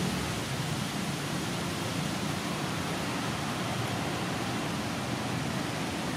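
Steady, even hiss of outdoor background noise with a low rumble beneath it.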